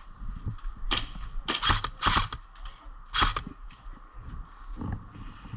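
Airsoft guns firing: a handful of sharp shots, some in quick pairs, between about one and three and a half seconds in.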